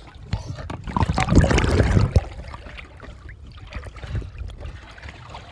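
Pool water sloshing and splashing as a person moves through an above-ground pool, picked up by a phone held at the waterline; the splashing is loudest from about one to two seconds in.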